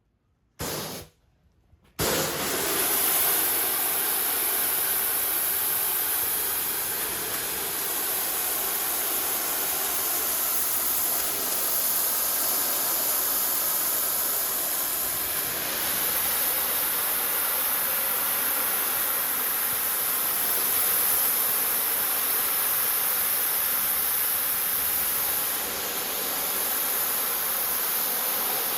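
Pressure washer spraying water: a short blast about a second in, then a steady hiss of spray from about two seconds in.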